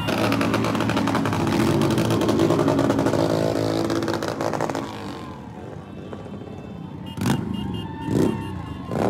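Several parade motorcycles, cruisers and a Triumph twin among them, riding past close by with engines running loudly. After about five seconds it drops quieter, with three short, louder bursts near the end.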